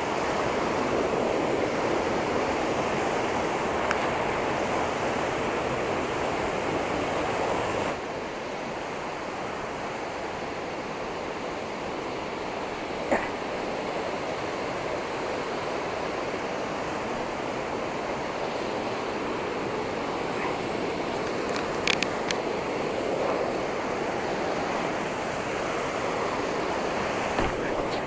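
Steady rush of a mountain stream tumbling over rocks, heard close, dropping a little in level about eight seconds in, with a few faint knocks.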